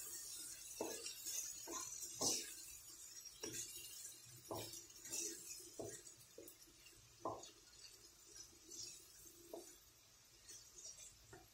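Wooden spoon stirring a thick tomato-paste mixture in a frying pan: faint, irregular knocks and scrapes against the pan, one or two a second, thinning out toward the end.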